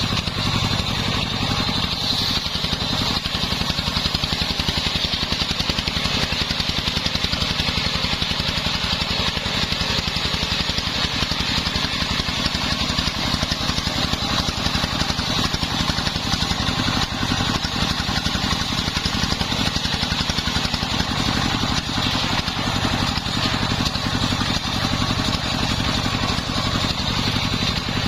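Homemade circular sawmill running steadily, its engine firing rapidly and evenly under a steady high-pitched whine from the saw.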